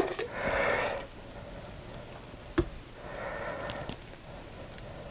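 Thick tomato pasta sauce glugging out of an upturned glass jar into a slow cooker, in two short soft bouts. There is a single knock about halfway through.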